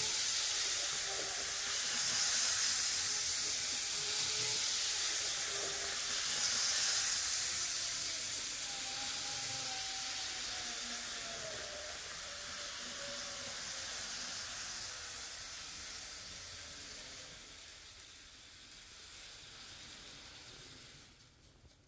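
White Shinkansen-style model electric train running on its oval track: a steady hissing whir from its motor and wheels on the rails. The whir swells and eases a few times, grows fainter over the second half, and drops away near the end.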